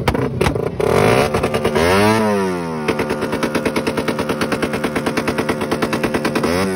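Race-built motorcycle engine with open velocity stacks and an open exhaust revved once, pitch rising and falling back, then idling with a fast, lumpy pulsing beat; another rev begins near the end.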